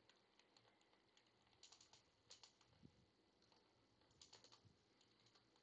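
Very faint computer keyboard typing: scattered keystrokes in short runs, about two seconds in and again around four and a half seconds.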